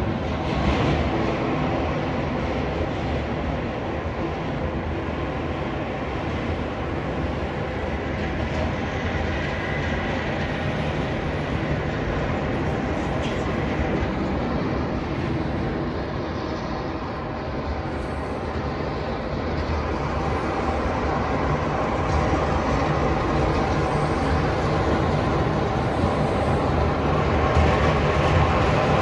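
A snowplow truck running along the snowy street, its plow blade scraping the road in a steady rumbling din that grows louder over the last several seconds as the truck approaches.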